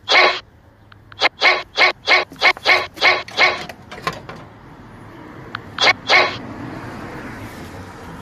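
A dog barking repeatedly: one bark at the start, then a quick run of about eight barks over the next two seconds, and two more about six seconds in. A steady rushing noise builds during the second half.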